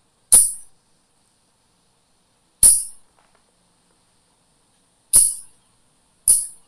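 Four short, sharp clicks, each with a brief hissing tail: the first three are about two and a half seconds apart and the last comes about a second after the third.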